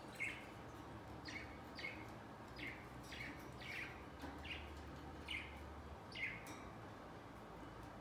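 Budgerigars chirping: a string of short, faint chirps, each falling in pitch, about one or two a second, which stop about six seconds in.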